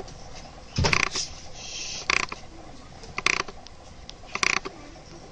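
Budgerigar giving short, creaky squeaks, one burst about every second.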